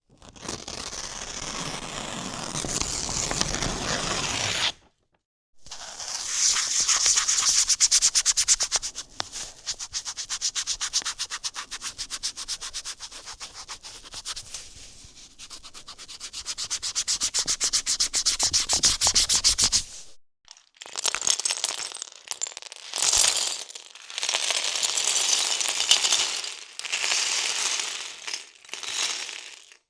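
Paper tearing, then after a short pause, about five seconds in, a marker writing and scribbling on paper in rapid back-and-forth strokes. About twenty seconds in come LEGO pieces poured and dropped, in several bursts with short pauses between them.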